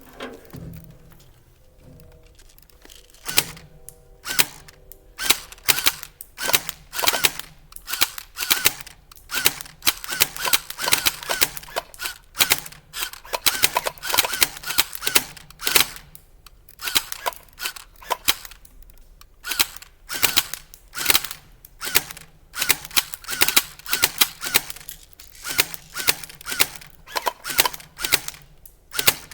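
Airsoft guns firing shot after shot, each a sharp crack, coming irregularly and often two or three a second, with a short pause about halfway through.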